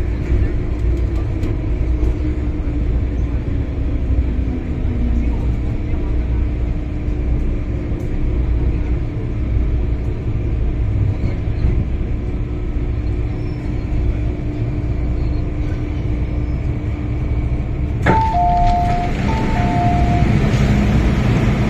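Hong Kong MTR M-Train heard from inside the car: a steady running rumble with a whine that falls in pitch as the train brakes to a stop, then a steady hum while it stands. Near the end a sharp click is followed by a two-tone chime sounded twice.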